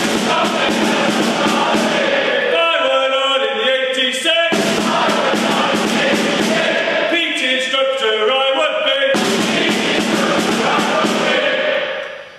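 Loud music with chanted vocals. Pitched vocal lines alternate every two or three seconds with dense, harsh passages, and the music drops out briefly near the end.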